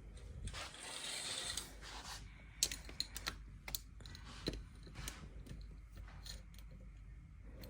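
Faint handling noise: a soft rustle, then a series of light, irregular clicks and taps, like a small object or fastener being worked by hand.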